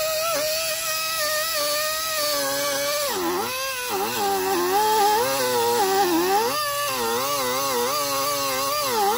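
Small right-angle die grinder with an abrasive polishing disc, whining at high speed while it cleans the aluminium water pump mounting face of an engine block. From about three seconds in, its pitch sags and recovers again and again as it is pressed onto the surface and eased off.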